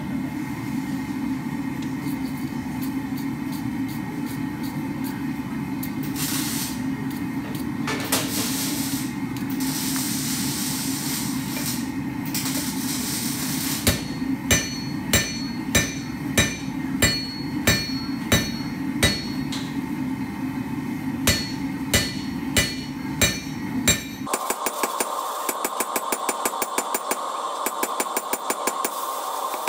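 Hand hammer striking a red-hot steel bar on an anvil, forging a hammer eye drift. From about halfway in come evenly spaced ringing blows, about one and a half a second, with a short pause, over a steady low hum. Near the end, quicker, lighter taps come at about four a second.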